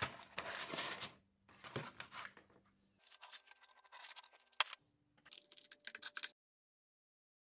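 Paper-backed sandpaper sheet rustling and crackling as it is handled, then a pencil scratching as it traces a disc outline on its back, with one sharp click. Scissors snip through the sandpaper in a quick run of short cuts near the end.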